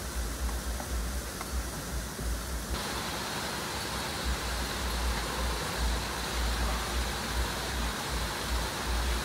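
Steady outdoor ambient noise: an even hiss over an unsteady low rumble. About three seconds in it turns suddenly brighter, with a faint steady high tone.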